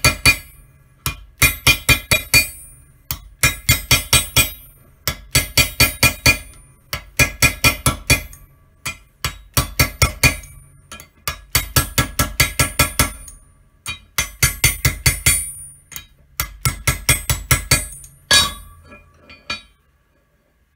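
Hammer striking a steel dome punch set in a concho die, doming a metal concho blank. The blows come in quick runs of about six a second, each run lasting about a second with short pauses, and each strike rings. The last blows come near the end, a louder strike followed by a few light taps.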